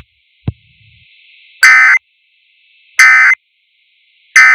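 Three short, identical bursts of EAS/SAME digital data tones about 1.4 s apart, each lasting about a third of a second. Their short length fits the end-of-message code that closes an Emergency Alert System warning. A single click comes near the start, and a faint radio hiss runs between the bursts.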